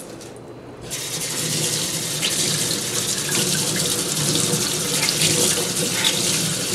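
Tap water starts running about a second in and pours steadily into a stainless steel sink, splashing over hands and a makeup sponge being rinsed under it.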